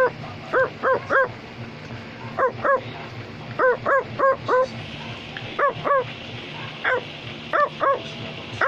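Short, high yapping barks like a small dog's, coming in quick pairs and runs of up to five, about sixteen in all, over a steady low hum.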